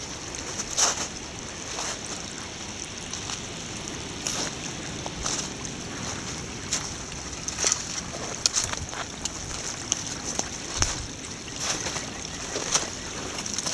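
Small snow-melt brook babbling over gravel and leaf litter, a steady rush of water with short crisp ticks about once a second.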